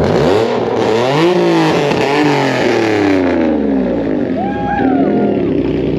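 A car engine revved hard several times, its pitch climbing and falling in quick succession over the first three seconds, then rising once more a little later.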